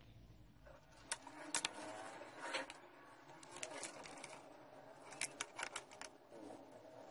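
Scattered light clicks and knocks of a hard plastic rotary-tool case and its plug-in power adapter being handled, coming in small clusters, with a quick run of clicks about five seconds in as the case lid is shut.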